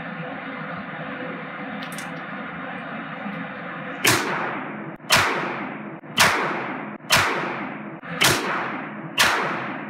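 Six revolver shots at about one per second from a Colt Army Special revolver firing through a billy club barrel extension, starting about four seconds in. Each shot rings out and decays in the indoor range.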